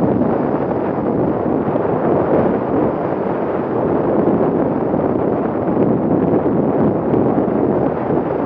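Wind buffeting the built-in microphone of a helmet-mounted action camera on a motorcycle moving at about 58 km/h: a loud, steady rushing that swells and eases slightly and covers the engine.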